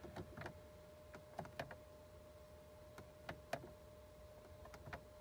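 Faint, irregular clicks of a Ford Crown Victoria's instrument-cluster reset button, pressed about nine times to step through the cluster's self-test readouts, over a faint steady tone.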